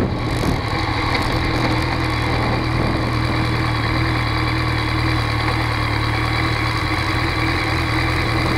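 Motorcycle engine idling steadily while the bike stands still; the wind noise dies away within the first second as the bike comes to a stop.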